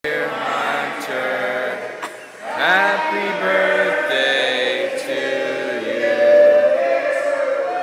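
A group of people singing together in an indoor pool hall, many voices at once.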